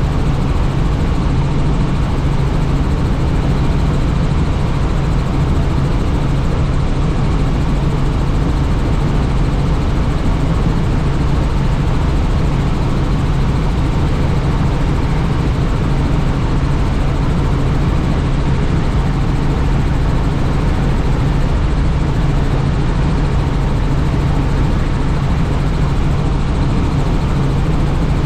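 Helicopter in flight heard from inside its doors-off cabin: a steady drone of rotor and engine with a strong low hum, under rushing wind.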